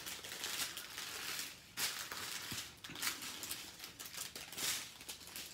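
Small plastic zip bags of diamond painting drills crinkling and rustling as they are handled and shuffled, an irregular crackle with a louder rustle about two seconds in.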